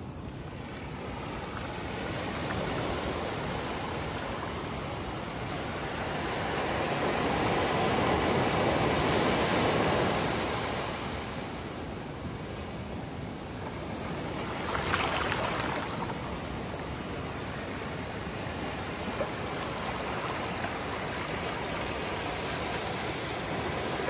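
Gentle ocean surf: small waves rolling in and washing over wet sand. The wash swells louder in slow surges, with a brighter, shorter rush of water about fifteen seconds in.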